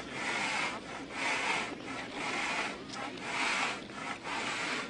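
Snow shovel scraping across the ice surface in regular strokes, about one a second, clearing loose snow and ice shavings from the skating track.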